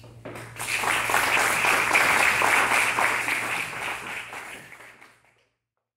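Audience applauding: many hands clapping, building within a second, holding for about four seconds, then dying away.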